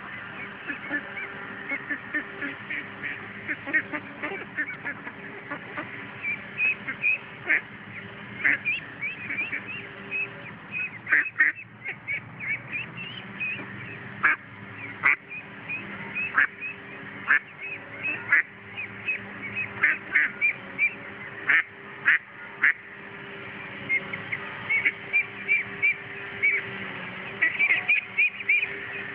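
A flock of ducks quacking, with many short calls coming in quick succession, some overlapping.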